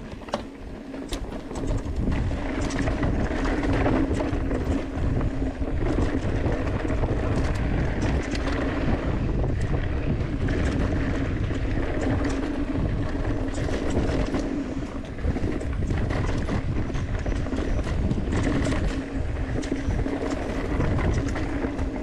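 Mountain bike ridden fast downhill on a dry dirt trail: tyres rumbling over the ground, wind buffeting the camera microphone, and frequent sharp knocks and rattles from the bike over bumps, over a steady hum.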